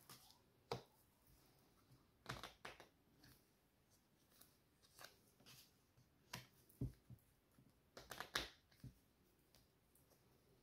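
Faint handling of a deck of playing cards: scattered soft taps and flicks as cards are drawn from the hand and laid down on a plastic-covered table. There is a quick cluster about two seconds in and a louder one near eight seconds.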